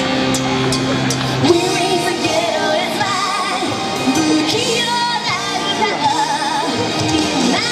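Pop song with a female singer: a held chord, then her voice comes in about a second and a half in, singing with vibrato over the backing music.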